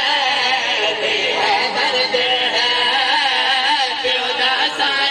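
A man singing a long, wavering melodic line in the chanted style of a zakir's elegiac recitation.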